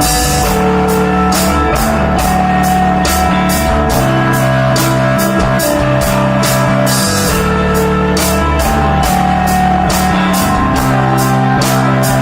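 Live desert rock from a band with electric guitar, bass and drum kit, with held bass notes under a steady cymbal beat.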